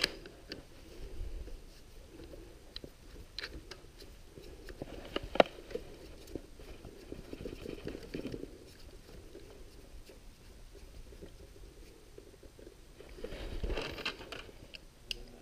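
Quiet handling noises of a drill chuck being screwed back onto a sewing machine's handwheel adapter: scattered light clicks and taps, with one sharper click about five seconds in and a brief louder rustle near the end.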